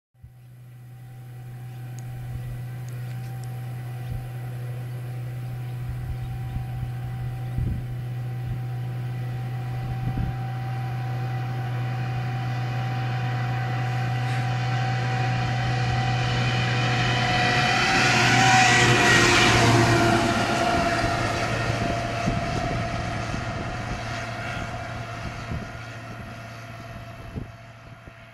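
A large engine-driven vehicle or machine passing close by. Its steady engine hum and whine build up, are loudest about two-thirds of the way through, then fade away. As it goes past, the whine drops slightly in pitch.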